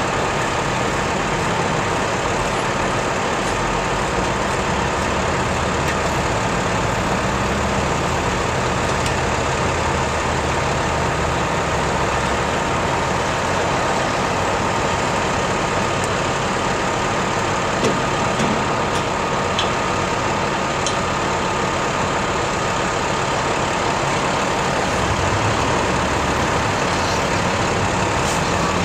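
Heavy diesel truck engine idling steadily, with a constant faint whine over it.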